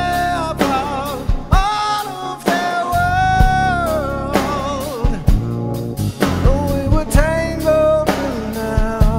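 Rock song with a man singing a held, bending melody over guitar, bass and a drum kit.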